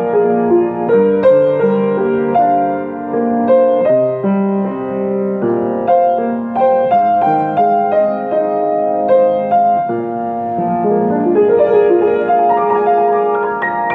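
Solo piano playing a melody over held chords in E-flat major, with a rising broken chord near the end.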